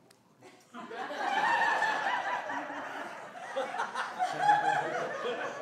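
A congregation laughing, starting about a second in after a brief hush and carrying on as a many-voiced chuckling.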